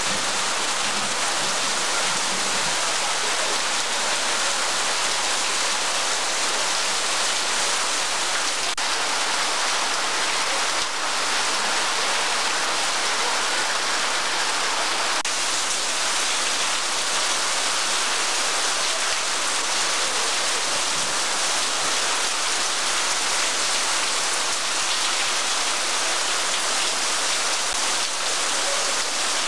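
Heavy rain falling on a flooded paved surface and a clay-tile roof, a dense, steady hiss of splashing drops.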